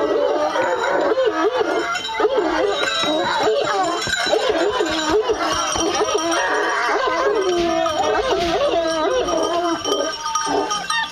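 A pack of hounds baying and yelping continuously, many dog voices overlapping and wavering in pitch.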